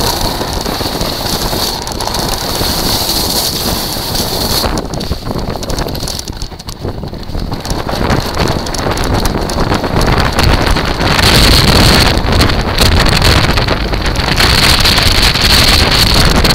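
Wind buffeting the microphone of a moving kite buggy, mixed with its wheels rolling over shingle; the noise eases briefly about a third of the way in, then grows louder for the last third.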